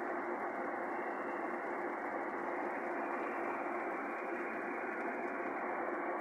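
Spice paste sizzling in hot oil in a wok: an even, unbroken frying hiss with a faint steady hum running through it.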